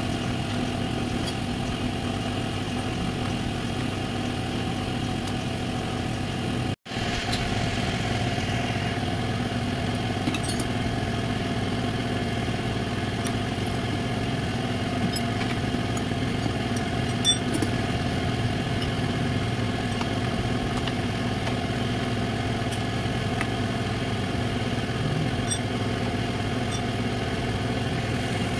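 Steady engine hum, like a motorcycle engine idling, with a few faint clicks. The sound drops out for an instant about seven seconds in.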